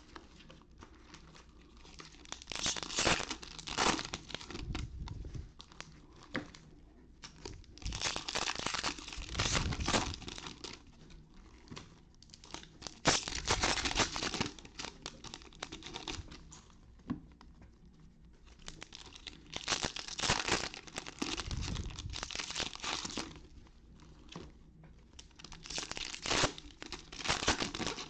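Trading-card pack wrappers being torn open and crinkled by hand, in about five separate bursts of a few seconds each with short pauses between.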